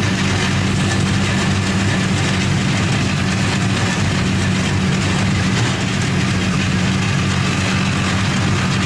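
A vehicle's engine running steadily while driving, with the rush of road and wind noise, heard from aboard. It is a constant low hum that doesn't change.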